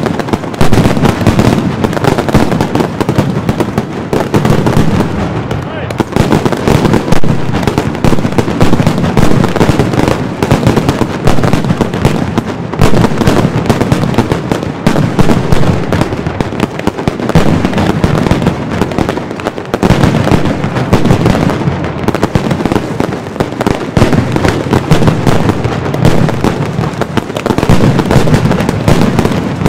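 Mascletà firecrackers and salute shells going off in a dense, unbroken barrage of loud bangs, too fast to count.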